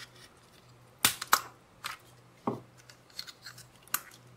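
Plastic shell of an Apple AirPods charging case, already cut around its ring, cracking and snapping as it is pried with a metal blade and pulled apart by hand. Several sharp cracks, the loudest about a second in, then a run of smaller ticks near the end.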